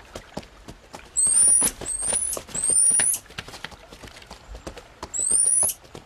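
Horses' hooves plodding through snow as faint, uneven soft knocks. Over them come four loud, high whistled chirps, each rising sharply at its end: three in quick succession about a second in, and one more near the end.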